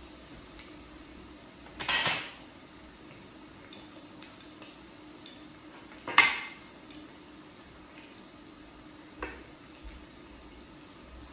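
Cooking utensils clattering against an electric hot pot and grill plate: a loud rattling clatter about two seconds in, a sharp knock about six seconds in and a lighter click near the end. Food sizzles faintly and steadily in the pot throughout.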